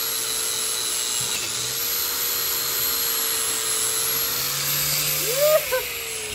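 Handheld power tool running steadily, its motor pitch wavering slightly as the load changes. A short rising-and-falling squeal comes about five seconds in.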